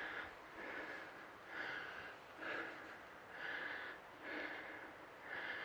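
A person breathing hard and fast close by, in and out about once a second, catching their breath after a strenuous climb.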